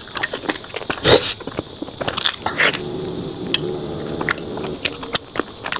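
Close-miked mouth sounds of biting and chewing a soft, sticky strawberry-filled glutinous rice cake: wet smacks and clicks throughout, with a hummed 'mm' from about three seconds in to about five.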